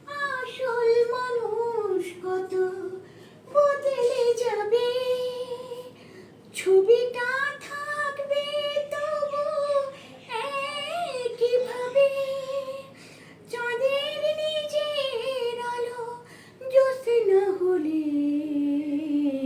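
A high female voice singing a slow Bengali song unaccompanied, in long held phrases with short pauses for breath between them.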